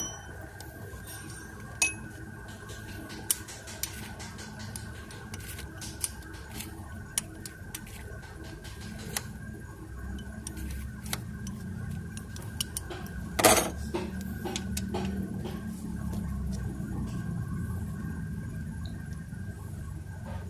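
Scattered metallic clicks and clinks of an L-shaped socket wrench working on a timing-belt tensioner bolt, with one louder clank about thirteen seconds in.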